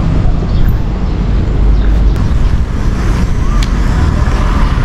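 Steady low rumble of vehicle engine noise, with a few faint short chirps above it.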